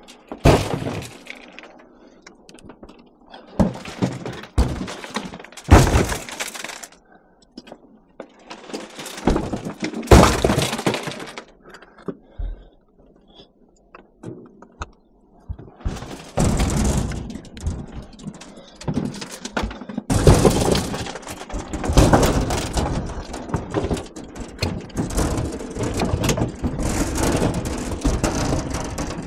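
Scrap being handled and dropped, clanging and crashing: a few separate crashes, then near-continuous clattering through the second half.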